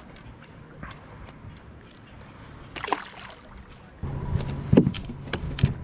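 Water lapping softly, with a short pitched squeak about three seconds in. Then a steady low hum starts abruptly, and several knocks and clicks come as a fishing rod is handled on a boat deck.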